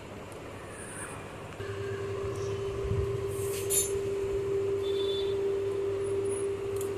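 A steady machine hum with a constant mid-pitched tone that comes in about a second and a half in, with a few faint clicks and rustles.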